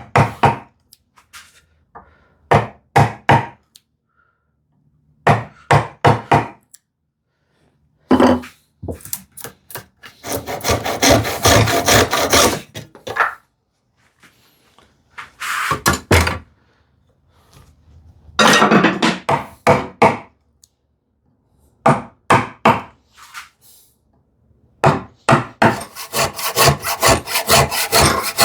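Hand plane cutting shavings from the wooden sides of a drawer in repeated strokes, coming in bursts of a few seconds with pauses between.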